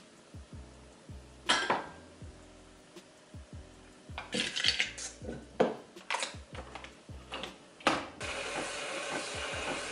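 Cups and kitchen items clinking and knocking on the counter as a coffee is set up. A sharp click near the end, as the capsule coffee machine's lever is closed, is followed by a steady whirring as the machine starts brewing.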